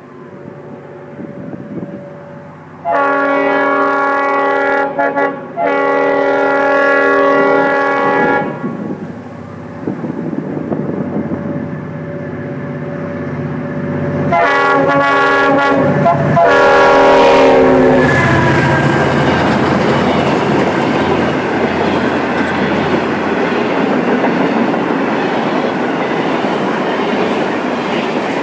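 Freight locomotive's multi-chime air horn: two long blasts about 3 to 8 seconds in, then a run of shorter blasts between about 14 and 18 seconds, over the running diesel engine. After that the train passes loudly, its empty grain cars' wheels clattering over the rail joints.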